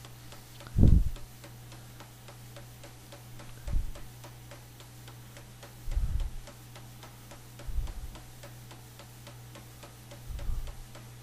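Pneumatic air hammer coming down on a hot steel knife tang in single, light blows about every two seconds, each a dull low thud, as the square tang is rounded up. Under it a steady low hum and a fast, even ticking about four times a second.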